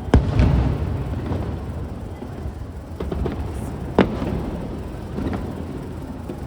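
Fireworks bursting: a loud bang just after the start followed by a low rumble, a few fainter pops, and a second sharp bang about four seconds in.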